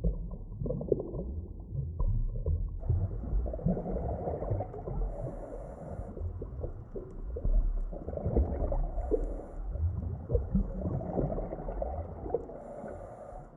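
Underwater ambience: a low rumble with continual bubbling and gurgling. It grows fuller and brighter about three seconds in.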